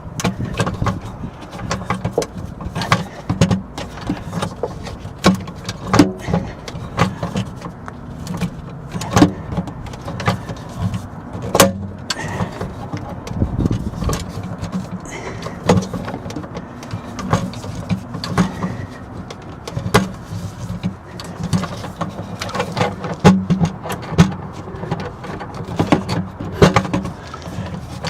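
Hand pop-rivet gun being squeezed over and over to set a rivet in a battery-cable terminal block, giving a string of irregular clicks and clacks until the mandrel snaps off. A steady low hum runs underneath.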